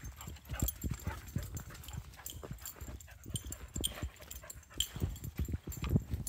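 Footsteps thudding on a muddy dirt trail, about two a second, with a boxer dog moving close by.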